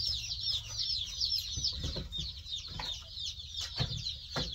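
A brooder full of newly arrived baby chicks peeping constantly, a dense chorus of high, falling cheeps. Several sharp knocks come in the second half as the wooden-framed screen lid is handled onto the box.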